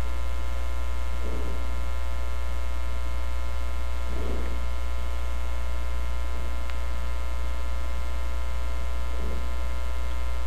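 Steady electrical mains hum with a buzzing edge of many overtones, unchanging throughout.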